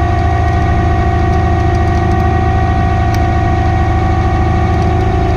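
Tow truck's engine running steadily while the winch reels in cable to drag a stuck pickup out of sand, with a steady whine over the engine hum.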